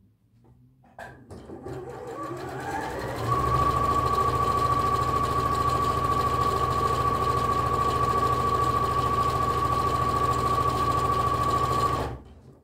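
Bernette b38 computerized sewing machine stitching: it speeds up over about two seconds with a rising whine, runs steadily at full speed with a high whine over a low hum, then stops suddenly near the end.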